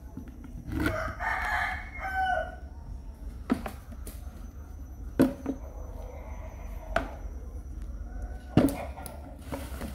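A rooster crowing once, about a second in, a drawn-out call lasting nearly two seconds. A few sharp clicks or knocks follow at intervals.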